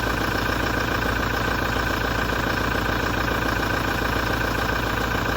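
2017 Toyota diesel engine idling steadily with a fast knocking and a metallic, grinding vibration. The owner reports that the noise has been there since a major service.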